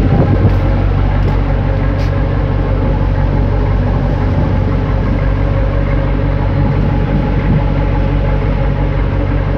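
A ship's engines running with a steady, deep drone, under an even rushing hiss.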